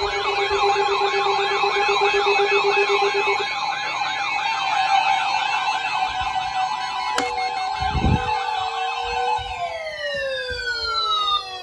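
Several sirens sounding together: a fast warbling siren rising and falling about two to three times a second, over steady siren tones, with a lower pulsing tone that stops about a third of the way in. Near the end the sirens wind down in pitch together and fade. There is a sharp click and a low thud a little past the middle.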